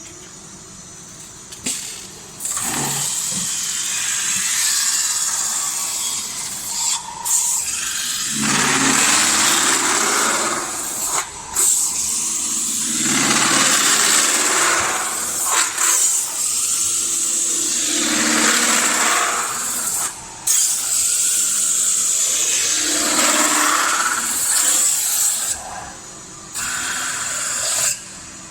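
Metal-spinning lathe turning a sheet-metal blank while a forming tool is pressed against it: a rough scraping hiss that swells and fades with each pass of the tool, over a steady high whine.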